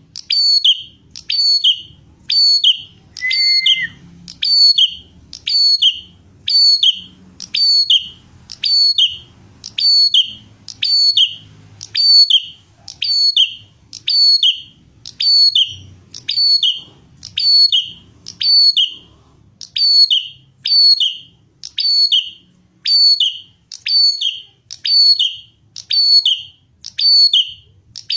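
Prinia (prenjak) calling over and over, a sharp high chirp repeated about once a second, each one a quick falling note. A single brief steady whistle-like tone sounds once about three seconds in.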